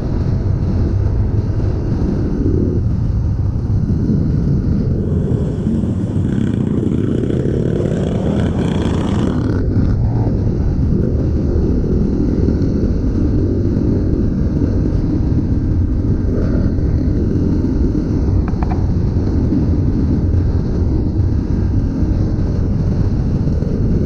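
Kawasaki KLX trail bike's single-cylinder four-stroke engine through its stock exhaust, running under load on a dirt trail. It is revved harder for a few seconds about five seconds in, then settles back to a steady pull.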